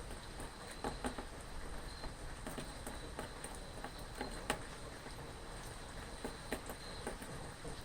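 Rain ambience: a steady hiss of light rain with scattered drops tapping at irregular intervals, under a thin, high, steady chirping of insects.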